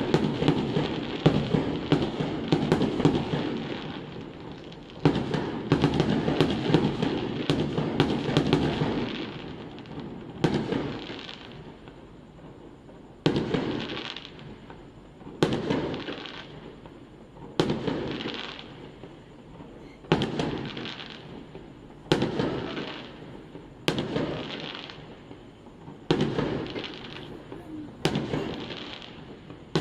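Aerial fireworks going off. For the first several seconds there is a dense run of overlapping bangs and crackle, then single bursts about every two seconds, each echoing away.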